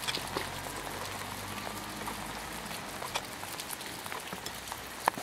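Rain falling, with individual drops ticking close to the microphone and one sharper tap near the end.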